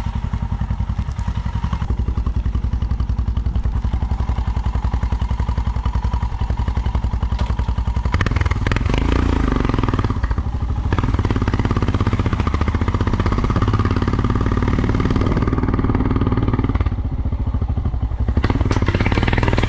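Motorcycle engine running steadily on the move, heard from on the bike, growing louder and fuller about eight seconds in.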